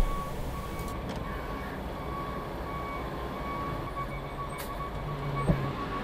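Concrete mixer truck's diesel engine running with a low rumble, while a backup alarm beeps on and off. A brief thump at the very start.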